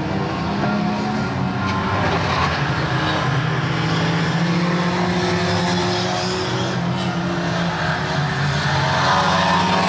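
Several small rookie rod race cars running together at racing speed, engines revving up and down as they pass.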